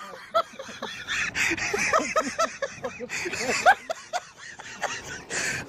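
A person's voice making short, high-pitched, wordless sounds in quick succession, several a second, over a steady hiss.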